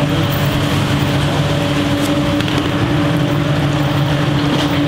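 Commercial kitchen extraction fans running: a steady, loud mechanical hum with a low droning tone and rushing air, with a few faint clicks.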